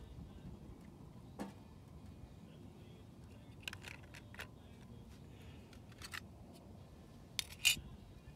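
A few light clicks and knocks from eggs being set down on a metal stove top and a small tin can being handled and rummaged in. The knocks come singly and in short clusters, with the loudest pair near the end.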